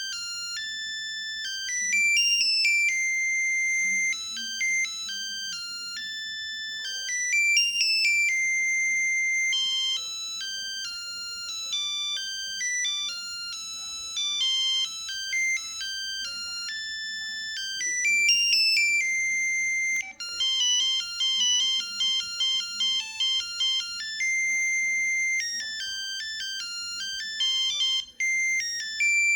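LG Cyon mobile phone playing a polyphonic ringtone through its speaker: a quick electronic melody of bright, clean notes with occasional held notes. It breaks off briefly about twenty seconds in, returns with rapid repeated notes, and breaks off again near the end.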